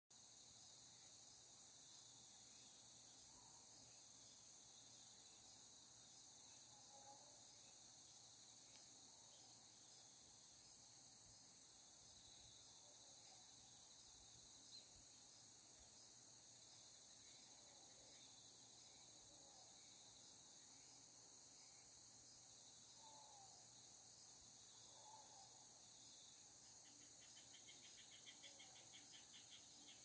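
Faint, steady chorus of crickets and other insects shrilling high, with a few soft chirps lower down. Near the end a rapid pulsing trill joins in.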